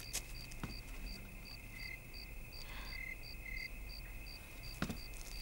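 Crickets chirping steadily in a faint night ambience, short high chirps about two and a half a second, with a few soft knocks.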